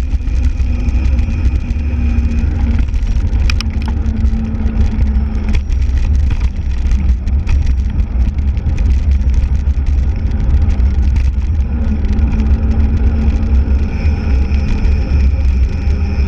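Wind buffeting the microphone of a bicycle-mounted action camera, a heavy steady rumble, mixed with the bicycle's tyres rolling over rough asphalt. A few sharp rattling clicks come about three and a half seconds in.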